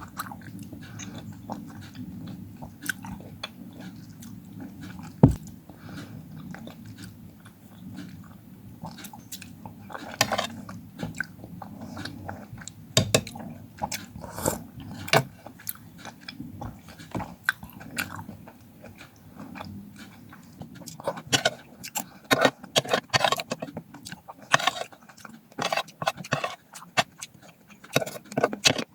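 Close-miked eating of fruit: irregular bites, crunches and wet chewing clicks, getting denser and louder in the second half. One sharp knock about five seconds in is the loudest sound.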